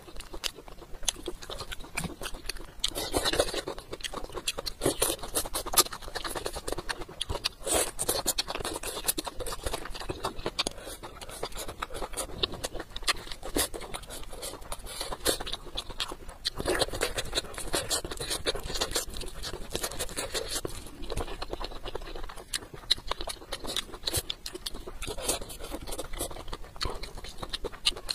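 Close-miked eating: a person chewing braised chicken with wet lip smacks, a dense, irregular run of sticky clicks that grows louder in a few stretches.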